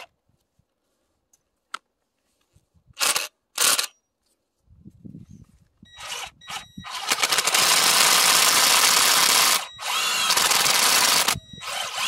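Cordless drill boring a grafting hole into a young flowering crabapple trunk. After two short trigger blips, the drill runs in long spells with brief stops, its motor whining steadily as the bit cuts into the wood.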